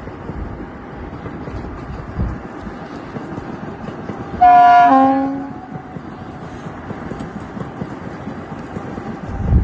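A train running with a steady rumble, and about halfway through a locomotive horn sounds one short blast of about a second, dropping from a higher to a lower tone.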